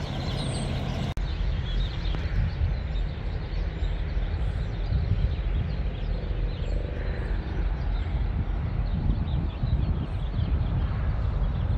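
Birds chirping faintly over a steady low rumble, with an abrupt change in the background about a second in.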